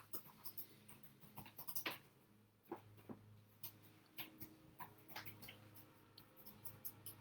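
Faint, irregular taps and scratches of a pen drawing on paper, over a low steady hum.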